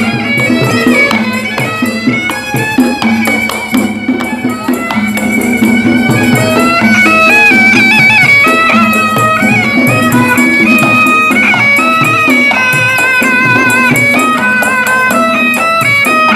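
Traditional Betawi ondel-ondel procession music: drums and jingling percussion under a high, wavering melody line, playing steadily.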